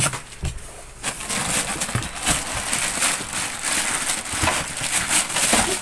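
Clear plastic wrapping crinkling and rustling as a plastic-wrapped amplifier is handled and lifted out of its foam packing and cardboard box. There is a brief loud rustle at the start, then steady crackly crinkling from about a second in.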